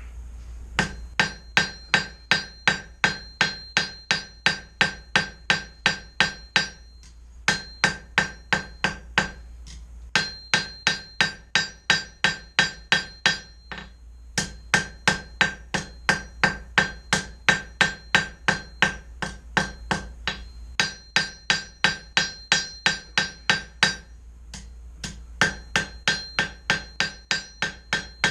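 Blacksmith's hand hammer striking 1/4-inch square steel bar stock on an anvil, about three ringing blows a second in runs of several seconds with brief pauses between. The bar is being drawn out, lengthened by about a quarter inch.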